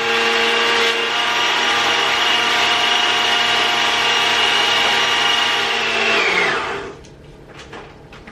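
Kitchen blender motor running steadily with a high whine while blending frozen strawberries and banana into a smoothie, then switched off about six seconds in, its pitch falling as it spins down.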